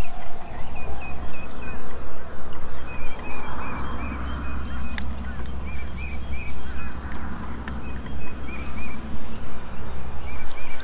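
Wind rumbling and buffeting on the microphone, with a bird calling over it in a long run of short, repeated high chirps.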